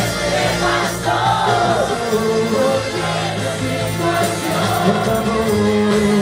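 Loud song with a man singing into a microphone over a backing track through a PA; the sung melody bends and holds over steady bass notes.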